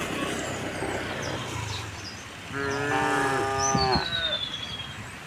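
A cow moos once, a long call of about a second and a half, starting about halfway through. Small birds chirp and whistle in the background throughout.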